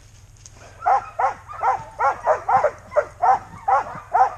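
A sled dog barking over and over, short rising-and-falling barks about three a second, starting about a second in, over a steady low rumble.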